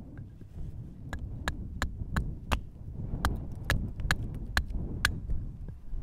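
Two runs of sharp, evenly spaced knocks, about three a second, with a short break about three seconds in, over a low rumble.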